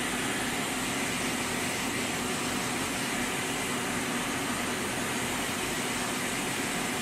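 Hot air rework station blowing steadily onto a controller IC on a circuit board, heating the solder to lift the chip off.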